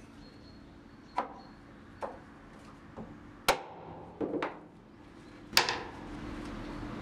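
Mallet knocking OSB spacer blocks into an OSB timber support: a series of sharp wooden knocks roughly a second apart, with a quick triple knock just past the middle and the loudest blow near the end.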